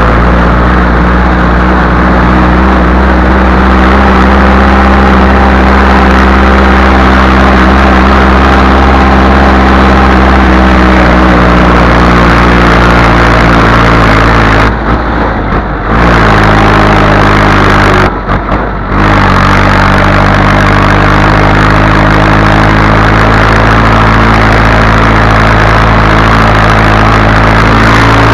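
Massey Ferguson 185 tractor's four-cylinder diesel engine running loudly and steadily while the tractor tows a loaded manure trailer along a lane. The sound drops away briefly twice about halfway through.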